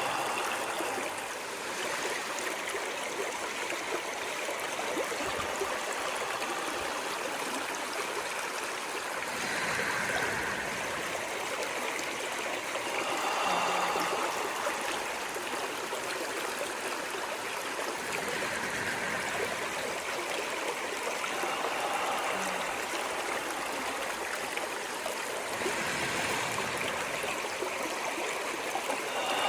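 Running water of a stream: a steady rushing flow with gurgles that swell up now and then.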